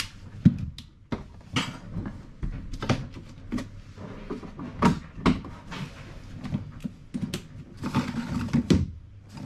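Irregular knocks, clicks and clunks of tools and fittings being handled during installation work, with a rustling stretch near the end.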